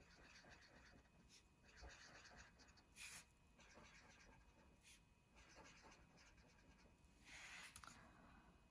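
Faint, quick scratching of a colouring tool on paper in several short runs as small blue polka dots are drawn in, with a couple of soft handling noises.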